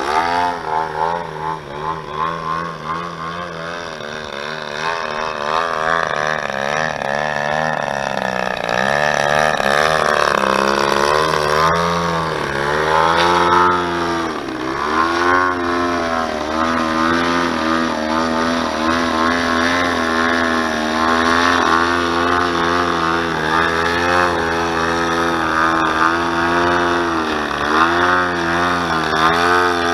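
DLE 111 twin-cylinder two-stroke gasoline engine of a 107-inch Pilot Edge aerobatic RC plane running, its pitch rising and falling constantly as the throttle is worked through low 3D hovering manoeuvres.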